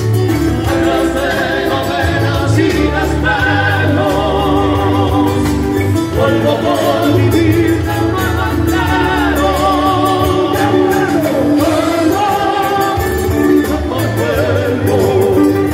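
Live Andean folk band playing: acoustic guitars strummed under several voices singing a wavering, vibrato-laden melody.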